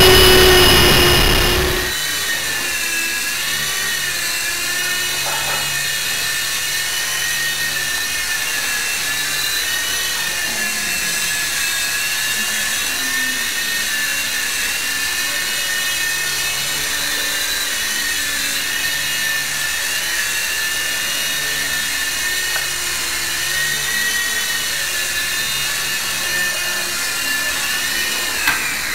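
Electric motors and rotors of an SH6030 three-channel RC toy helicopter in flight, picked up by its onboard camera. It is a steady high whine whose pitch wavers gently up and down, louder for the first two seconds before it settles.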